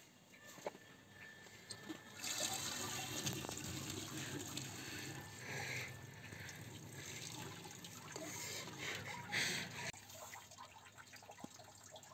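Water from a tap running into a plastic colander as a batch of olives is rinsed, with splashing. The flow picks up about two seconds in and eases near the end.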